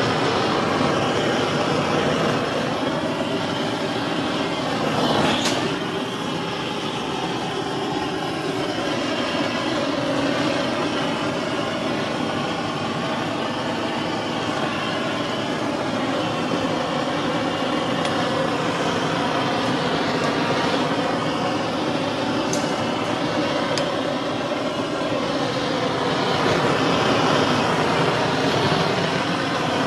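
Blowtorch flame burning with a steady rushing noise as it is played over wire-mesh rabbit cages to singe off shed fur. Two brief sharp clicks, about five and twenty-two seconds in.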